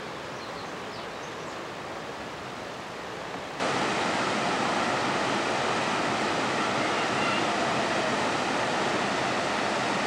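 Waterfall: water rushing steadily over a weir and a rocky ledge. The rush is softer at first and jumps suddenly louder a little over a third of the way in, then holds steady.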